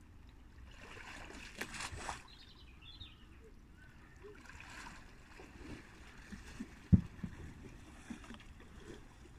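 Water splashing and sloshing as a person wades in shallow river water and drags a large driftwood log, with louder splashes about two seconds in. A single sharp knock about seven seconds in is the loudest sound.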